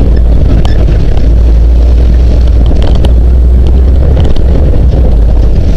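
Jeep CJ7 engine running as the Jeep drives a rough dirt trail: a steady low rumble with scattered light clicks and rattles.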